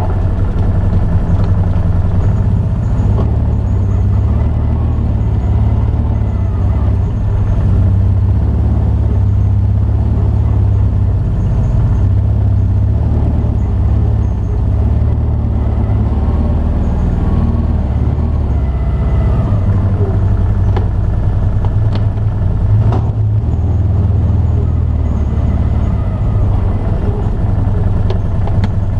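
Car engine running steadily at low speed, a deep rumble heard muffled through a camera mounted on the car's hood.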